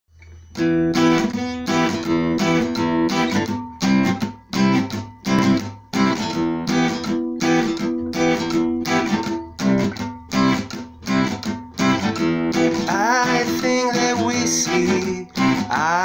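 Acoustic guitar strummed in a steady rhythm of chords as a song intro; a man's voice starts singing over it about three seconds before the end.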